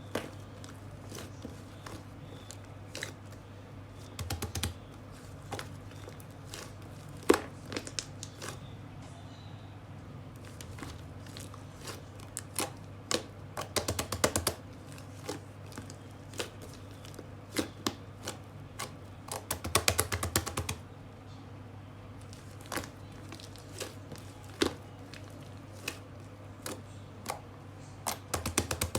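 Irregular light clicks and taps, mostly single, with short quick runs of clicks a few seconds in, about halfway, and near the end, over a steady low hum.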